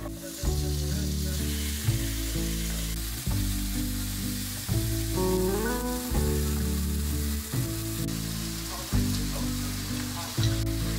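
Diced chicken breast and sliced shiitake mushrooms and carrot sizzling steadily in a frying pan on a gas burner, stirred with chopsticks. Soft background music plays under it, its chords changing about every second and a half.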